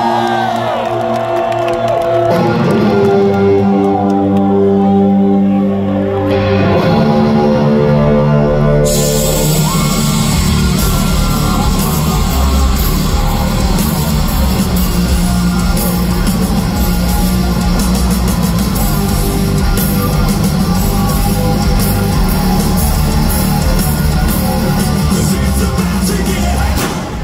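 Hard rock band playing live, heard from within the crowd in a large hall. Held electric guitar chords change every few seconds, then the full band with drums and crashing cymbals comes in about nine seconds in, with a singer's voice over it.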